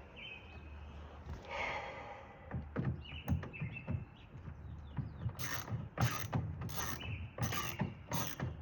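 Sliding door lock being worked to test it: a couple of brief squeaks and a short scrape, then a run of sharp mechanical clicks about twice a second from about five seconds in.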